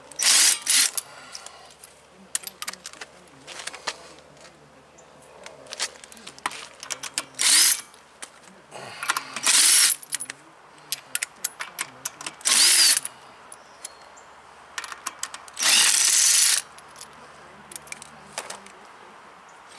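Cordless impact tool hammering lug nuts off a car's front wheel in about six short bursts, each under a second long, with small metallic clicks in between.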